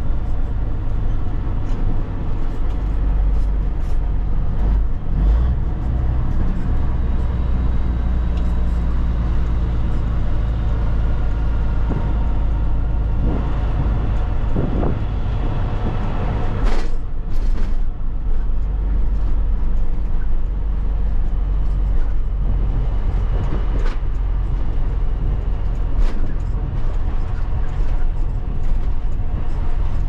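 Caterpillar 3406B diesel engine of a cabover semi running under way, heard inside the cab as a steady low drone with road and wind noise. About halfway through there is a short, loud burst of hiss.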